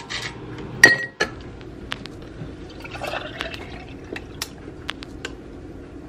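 A sharp clink of a glass mason jar with ice in it about a second in. Then coffee is poured from a bottle over the ice cubes, filling the jar with a steady pouring sound and small clicks of ice.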